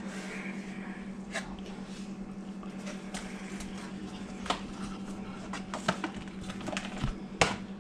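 Cardboard motherboard box being unpacked by gloved hands: paper inserts rustling and the box lid and inner tray giving a few light clicks and knocks, the sharpest near the end, over a steady low hum.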